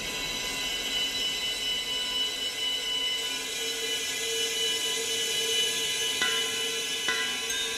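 Electroacoustic drone from a film score: many held high tones layered over a steady hiss, with two sharp clicks about a second apart near the end as some of the tones shift.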